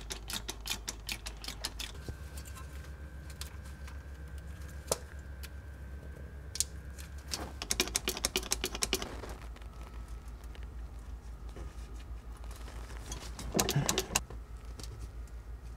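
Hand-operated fluid transfer pump on a fluid bottle, worked to fill a manual transmission: faint light clicks and rattles, with two denser bursts of clicking, one about eight seconds in and one near the end.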